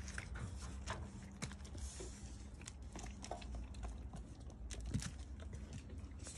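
A goat eating mango: irregular wet clicks and crunches of its biting and chewing.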